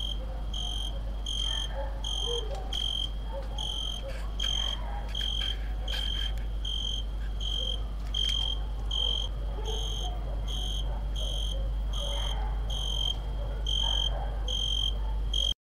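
A cricket chirping steadily, a little more than one short high chirp a second, over a steady low hum.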